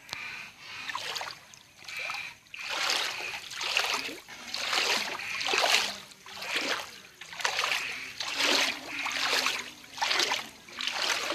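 Floodwater splashing in repeated strokes, about once a second.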